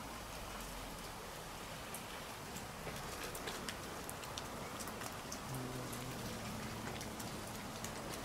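A stray cat's low, drawn-out threat growl during a standoff with another cat, starting about five and a half seconds in and lasting nearly three seconds. Underneath is a steady hiss with faint scattered crackling ticks.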